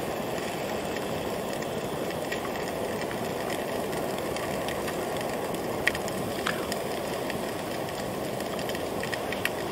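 Steady hiss of a small camping gas stove with sausages frying in its pan, and a few faint crackles about six seconds in.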